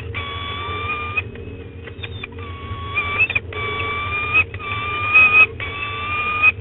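Female peregrine falcon wailing: about five long, even calls, each about a second long with a slight rise at its end and a brief pause between them. This is the food-begging wail a female gives as the male comes in with prey. A steady low hum of wind on the microphone runs underneath.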